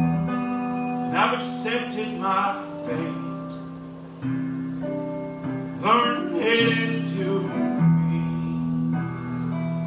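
Live solo acoustic guitar and male voice: chords ring steadily while the man sings short phrases, first about a second in and again around six seconds in.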